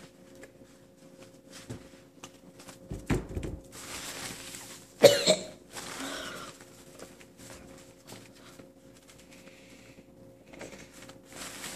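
A boy coughing into a tissue, as a reaction to the nasty taste of moldy chocolate. The loudest cough comes about five seconds in, and a duller thump comes about three seconds in.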